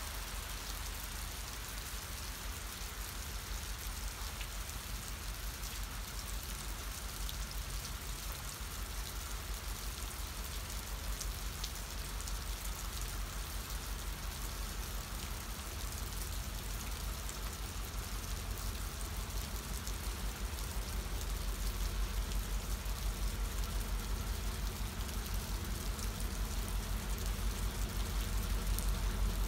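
Steady hiss of light rain falling, under the low rumble of an approaching diesel freight locomotive that grows louder in the second half.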